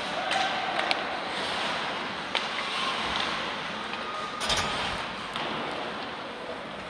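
Ice hockey arena during play: skates scraping on the ice and a murmur of spectators in a large echoing hall, with a few sharp clacks of sticks and puck and one louder knock about four and a half seconds in.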